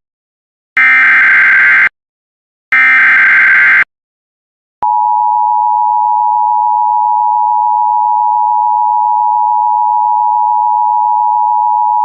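Emergency Alert System tones: two screechy one-second bursts of SAME digital header data about a second apart, then, about five seconds in, the steady two-tone EAS attention signal starts and holds.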